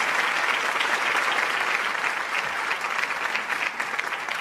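Audience applauding, slowly dying down towards the end.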